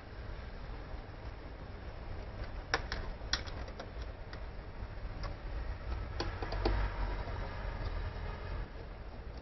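A handful of sharp clicks and light taps, bunched in the middle, from gloved hands and a screwdriver handling the electric scooter's motor, wires and fittings, over a steady low hum.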